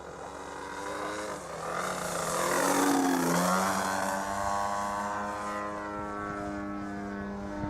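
Radio-controlled Edge 540 model plane's MLD 35cc single-cylinder two-stroke petrol engine and propeller running in flight, a buzzing note that grows louder as the plane approaches and drops sharply in pitch as it passes close about three seconds in, then carries on steadily as it flies away.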